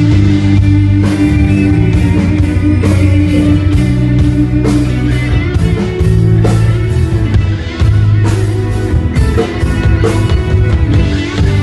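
Instrumental break of a pop-rock ballad: band music with guitar, bass and drums, no singing.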